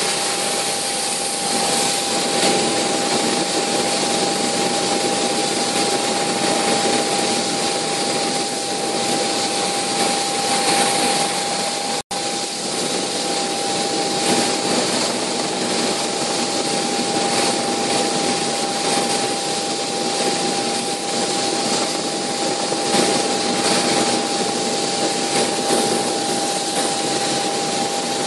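Cabin noise inside a Bell 430 twin-turboshaft helicopter in flight: a loud, steady rush of engine and rotor noise with a constant whining tone held throughout. The sound cuts out for an instant about twelve seconds in.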